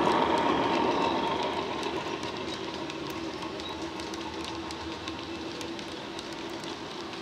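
Hornby Class 50 model locomotive's DCC sound decoder playing a Class 50 diesel engine sound file through an EM2 speaker: a steady engine drone that fades over the first couple of seconds as the train moves away, then holds at a lower level. Light clicking runs through it.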